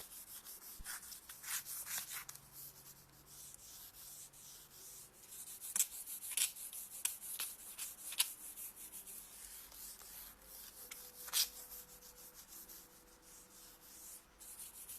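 Sandpaper rubbed by hand over a painted wooden switch plate in short, irregular strokes, smoothing down the dried second coat of paint.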